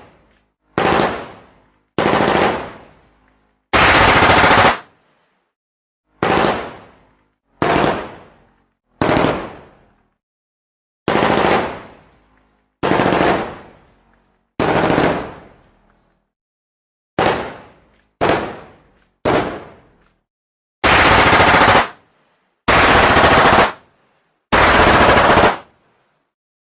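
A series of gunshot sound effects separated by silence: most are single shots with an echoing tail that fades over about a second, and four are sustained bursts of automatic fire about a second long each.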